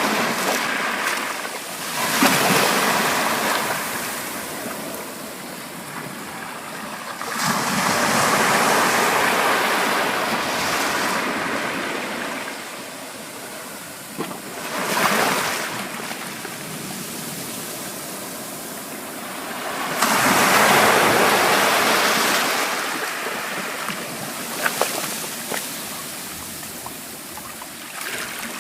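Ocean surf: waves break and wash in, in loud swells every five to seven seconds, with a softer hiss of moving water between them.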